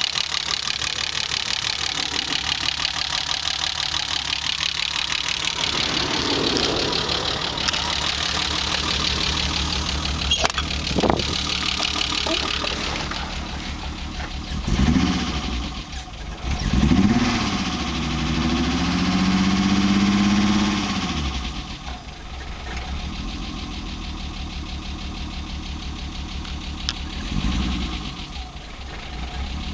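BMW E30's M20B25 straight-six idling rough, a condition that came on with newly fitted fuel injectors and an ECU chip. About halfway through there is a short throttle blip, then a rev held for a few seconds before it drops back to the uneven idle, and another short blip near the end.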